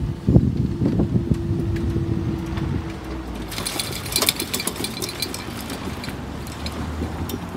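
Level crossing barrier mechanism humming steadily as the barriers rise, stopping about three and a half seconds in. A burst of rattling clicks follows for a couple of seconds.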